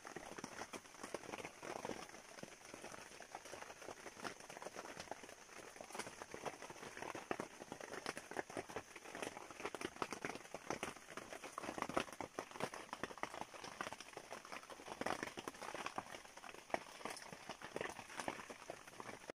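Night chorus of frogs and insects: dense, irregular crackling clicks over a steady high-pitched insect hum. It is the sound that goes on every night from about 7 pm until 7 or 8 in the morning.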